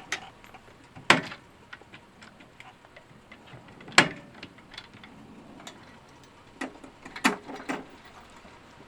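Sharp knocks and clicks: three loud knocks about three seconds apart, with lighter ticks scattered between them.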